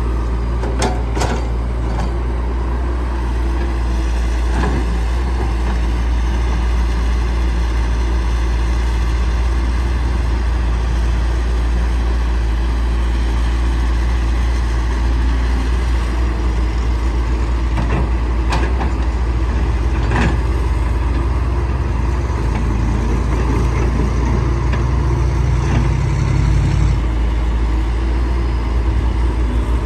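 Caterpillar 312C hydraulic excavator's diesel engine running steadily under working load, with occasional sharp knocks. Near the end the engine note drops.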